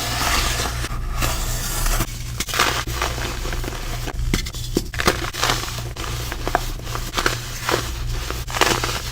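Compacted baking soda being crushed and crumbled, a dense crunching crackle full of sharp snaps, with a steady low hum underneath.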